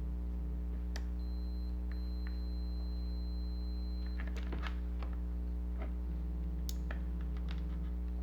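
Multimeter continuity tester beeping with one steady high tone, held about three seconds with a brief break, as its probes bridge a switch that conducts. Light clicks and taps of the probes and the plastic toy follow, over a steady low electrical hum.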